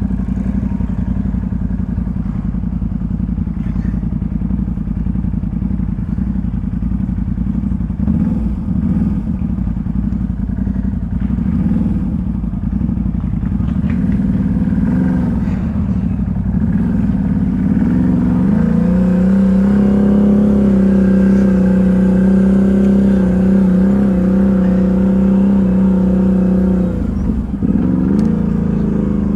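ATV engine running, revving up about two thirds of the way in and holding high revs for several seconds under load, then dropping briefly near the end before picking up again.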